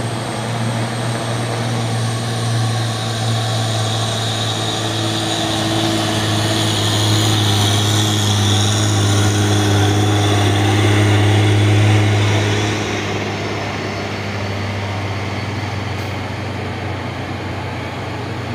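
Diesel engine of a Hino trailer truck running steadily as it passes, a deep drone that grows louder until about twelve seconds in, then drops back.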